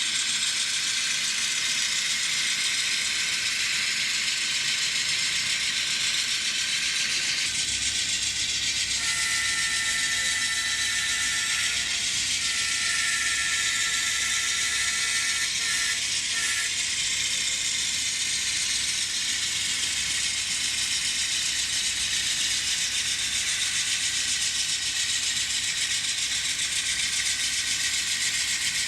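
N scale model diesel locomotives running together on track: a steady mechanical whirr and clatter from their motors, gears and wheels. About seven seconds in a low sound-decoder engine rumble joins. A few seconds later a multi-note horn sounds twice, lasting several seconds in all. The horns and engine sounds are not yet set up for consist running, so they sound at once from several units.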